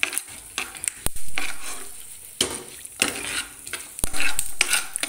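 Steel spoon stirring and scraping melon seeds as they roast in a frying pan: repeated swishing strokes about once a second, with a few sharp knocks of the spoon against the pan, near the start and toward the end.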